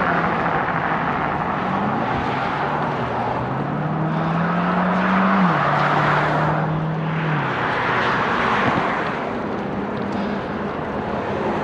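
Highway traffic passing by, a steady rush of tyres and engines that swells as vehicles go past. Under it, one vehicle's engine hum climbs in pitch, drops sharply a few seconds in, then fades away.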